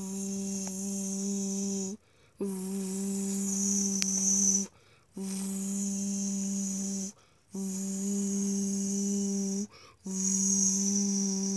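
A steady, even-pitched low hum with a faint hiss on top. It comes on for about two seconds at a time, with short silent breaks between, five times over: the make-believe transformation machine running.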